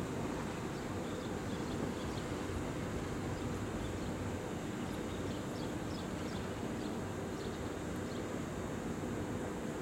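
Steady hum of stopped Kintetsu electric trains standing at the station platform, their onboard equipment running. A few faint high chirps come in around the middle.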